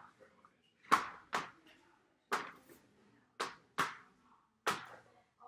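A ball thrown against a sheet of paper on a wall, hitting with sharp slaps about six times, some in quick pairs.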